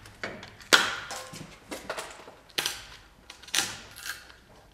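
Plastic packing straps being cut and snapping loose around a foam wrap: a series of sharp snaps, each trailing off in a short rustle, the loudest about a second in.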